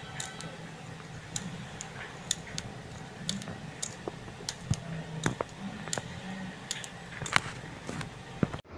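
Small kitchen knife slicing green chillies into thin rounds, cutting against the thumb: a string of irregular crisp clicks, a few each second, as the blade goes through the chilli and the slices drop into a glass bowl.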